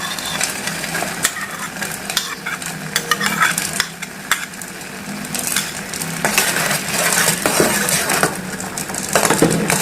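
Sugared water bubbling at the boil in a small pan, with a spoon clinking and scraping against the pan as the bilimbi flowers are added and stirred in.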